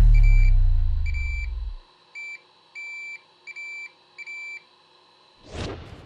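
A digital multimeter's continuity beeper sounds six short, unevenly spaced beeps, each one marking a moment when the probe makes contact on a connector pin. Before the beeps, a deep boom's falling rumble fades out over the first two seconds, and a whoosh sweeps up and down near the end.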